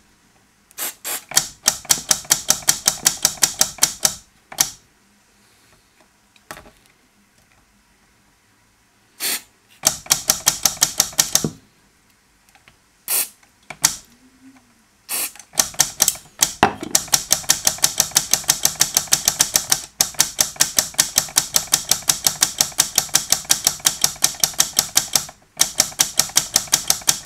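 A small switch in a vintage valve radio clicking rapidly and evenly as it is worked back and forth, in several runs with pauses between them, which works freshly sprayed contact cleaner through its contacts. The longest run lasts about nine seconds, from a third of the way in until near the end.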